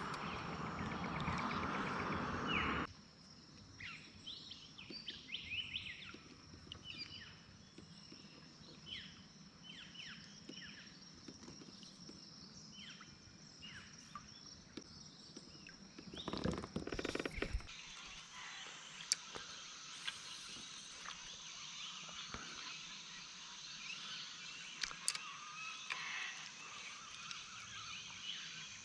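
Creekside bush ambience: a steady high insect drone with many short bird chirps over it. It opens with about three seconds of loud rushing noise that stops abruptly, and there is a brief burst of noise a little past the middle.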